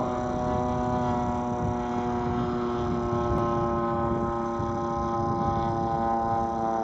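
Engine of a radio-controlled aerobatic model airplane in flight, a steady drone with its pitch drifting only slightly as it flies the aerobatic sequence.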